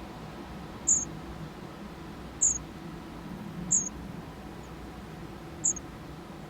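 A baby bird giving short, very high peeps, four in all, one to two seconds apart.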